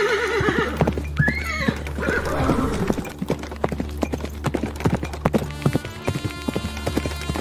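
A horse whinnying, a wavering call that fades about half a second in and a shorter call just after one second, followed by a long run of irregular hoofbeats, over a steady low hum.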